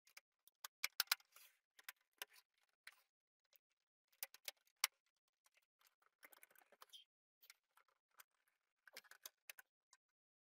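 Faint, scattered clicks, taps and light clinks of an Amiga 1000's metal shielding, screws and plastic case parts being handled and fitted together, with a short scraping rustle about six seconds in.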